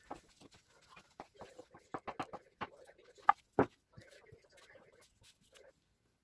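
Kitchen knife chopping boiled potato on a wooden cutting board: a quick series of sharp taps, about three to four a second, with two louder knocks a little past three seconds in. Softer clatter follows as the cubes go into a glass bowl.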